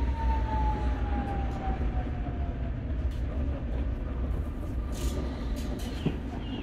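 Electric tram running with a heavy low rumble, its motor whine falling steadily in pitch over the first few seconds, with a few faint clicks near the end.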